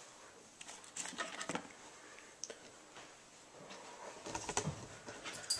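Handling noise from a handheld camera being moved: scattered light clicks and knocks over faint room noise.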